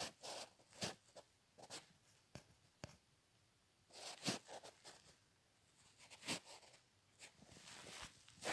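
Pencil scratching on paper in short strokes as small circles are sketched, with a few light taps.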